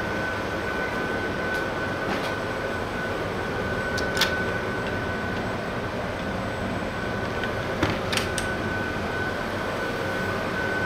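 Steady drone of a car ferry's engines and ventilation, heard inside the passenger lounge, with a constant high whine. A sharp click about four seconds in and a few more around eight seconds.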